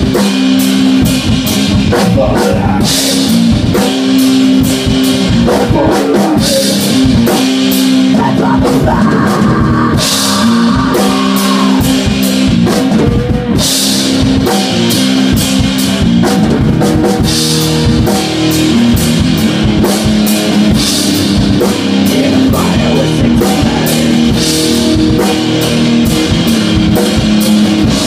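A rock band playing live: a drum kit with a cymbal crash every three to four seconds, under steady electric guitar chords.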